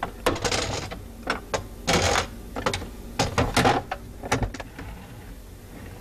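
Glass jars clinking and knocking as they are moved and set down on a plastic refrigerator turntable: an irregular string of clicks and clatters, loudest about two seconds and three and a half seconds in.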